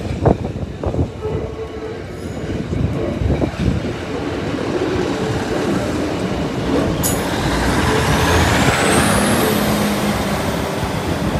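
A Class 156 diesel multiple unit running past over the level crossing. The rumble of its engine and wheels builds to a peak about nine seconds in, with a sharp click about seven seconds in and a high whine rising near the end.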